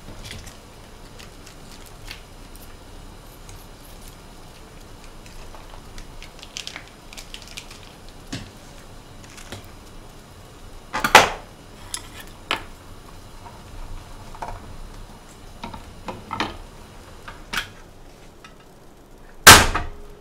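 Dishes and a pot being handled: scattered light clinks and knocks, with a loud knock about eleven seconds in and an even louder one near the end.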